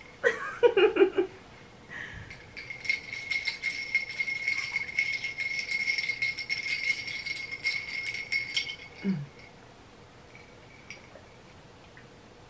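A metal straw stirring a mixed drink in a tall glass: rapid clinking and rattling for about six seconds, with the glass ringing at a steady pitch throughout. A brief vocal sound comes right at the start.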